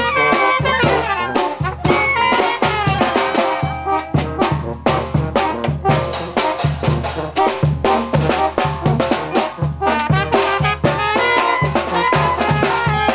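Live brass band playing: trumpets, tuba and clarinet carrying the tune over a steady bass-drum beat.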